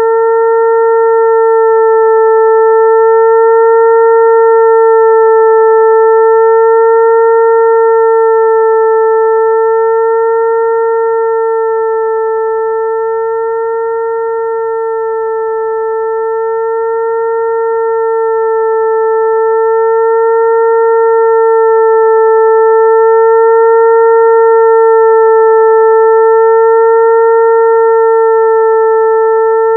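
Mosquito-attracting tone: a steady, high hum with overtones, imitating the whine of a mosquito's wingbeat. The pitch wavers slightly, and the loudness slowly swells and eases, dipping about halfway through.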